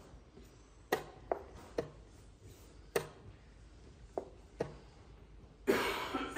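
Quick blitz moves: sharp knocks of wooden chess pieces set down on a wooden board and taps on the chess clock, about six in the first five seconds. Near the end comes a louder, longer clatter lasting under a second.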